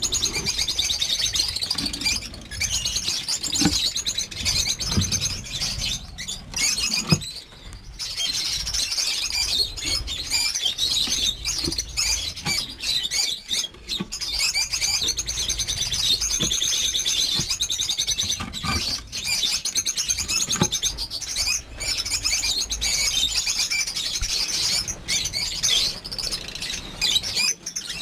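Many lovebirds chattering together in a continuous stream of high, rapid chirps, with scattered short clicks and flutters among them.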